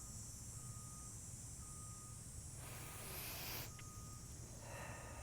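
Faint outdoor ambience of insects chirring steadily, with a thin tone that repeats about once a second. About three seconds in comes a short breathy hiss, and a smaller one near the end.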